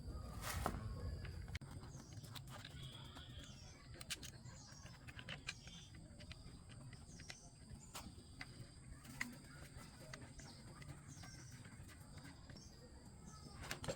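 Birds chirping, with scattered sharp clicks and taps and a faint steady high-pitched tone.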